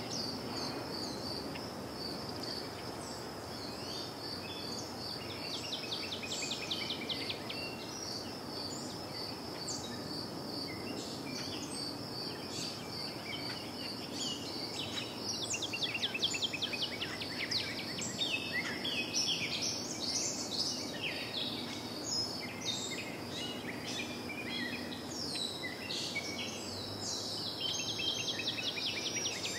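Outdoor ambience of small birds chirping and an insect trilling steadily on one high pitch, over a steady low background noise. The chirping gets busier about halfway through.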